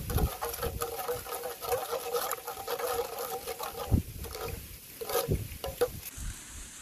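Metal ladle stirring a steel pot of dipping sauce thick with chopped garlic and chili, with small clinks and scrapes against the pot. A couple of low thumps come about four and five seconds in.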